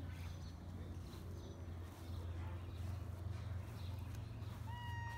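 A steady low hum with a few faint, high, short chirps, likely birds. Near the end a tabby-and-white domestic cat gives a short meow that holds one pitch and then drops.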